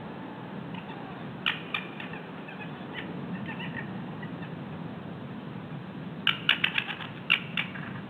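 Short, sharp bird call notes: a pair about a second and a half in, and a quick run of about eight near the end. They sound over a steady hiss from the outdoor webcam's microphone.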